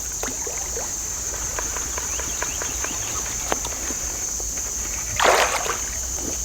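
Water splashing and gurgling at the creek surface where a topwater lure is being worked, small irregular splashes with one louder splash about five seconds in, against a steady high-pitched drone.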